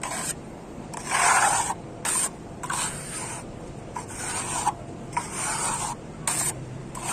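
A trowel spreading a fine-grain fibre-reinforced skim coat over plaster, in a series of about six scraping strokes with short pauses between them, some brief and some nearly a second long.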